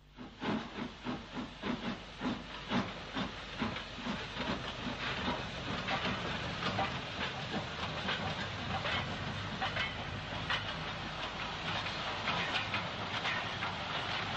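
Ex-LNWR 0-8-0 steam goods locomotive working hard, with loud exhaust beats over a hiss of steam. The beats come about two to three a second at first, then quicken and run together into faster chuffing as the engine picks up speed.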